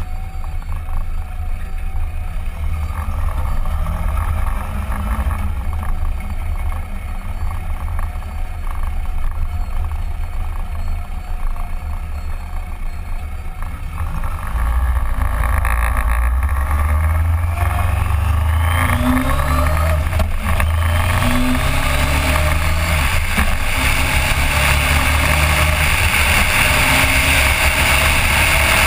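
Suzuki GSX1400's inline-four engine running at low speed, then about halfway through it accelerates, its pitch rising, and the sound grows louder with a steady rush of air and road noise.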